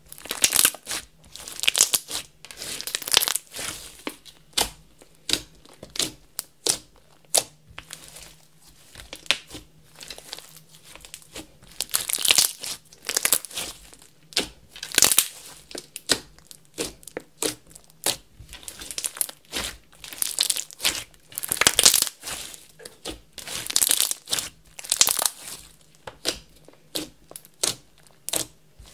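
Slime being squeezed, stretched and folded by hand, giving irregular crackly squelches and pops, a louder burst every second or two.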